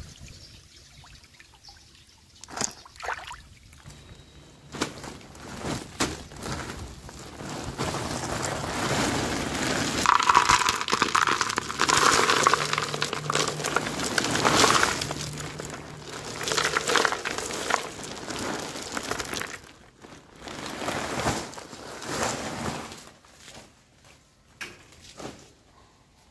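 Stones and soil poured from a plastic bag into a plastic basin: a noisy pour lasting several seconds in the middle, with the bag crinkling. Scattered short knocks come before and after it.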